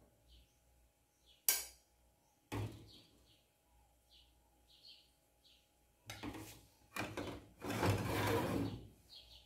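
A spoon clinking against a plate and pot while rice is served, a sharp clink and a knock in the first few seconds, then a long wooden spoon scraping thick fish pirão out of an aluminium pot onto the plate near the end.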